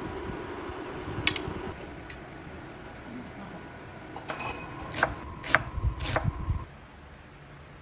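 Kitchen work sounds: sharp knocks and clinks of utensils, one about a second in and four more between about four and six seconds in, over a low steady hum that stops before two seconds in.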